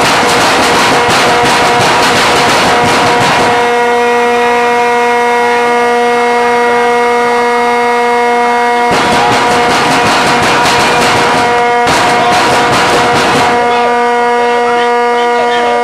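Stadium crowd cheering and clapping in a victory celebration on the field after a football game, in loud stretches that break off abruptly, the first lasting about three and a half seconds and a second one coming after about nine seconds. Under it a steady, unchanging horn-like note is held throughout.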